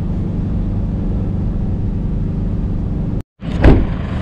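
Van's engine and road noise heard from inside the cab while cruising on a highway, a steady low hum. About three seconds in it cuts off abruptly, followed by a single loud thump and the van's engine idling.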